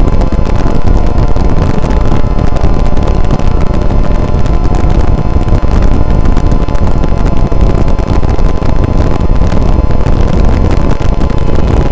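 Loud, heavily distorted rumbling noise, strongest in the low end, with faint steady tones under it; a produced sound effect after the broadcast goes off the air.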